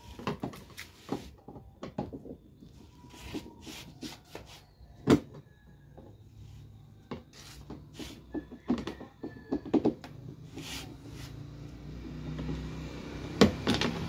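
Scattered clicks, knocks and scraping of plastic as a screwdriver pries at and loosens the top control-panel cover of a Panasonic twin-tub washing machine. A low rumble builds near the end.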